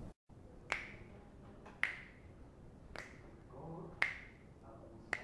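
A man snapping his fingers in a steady rhythm, about one snap a second, five snaps in all, with a faint murmur of his voice between them.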